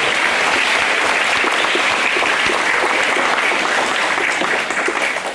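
Hall full of schoolchildren clapping in sustained applause, thinning out near the end.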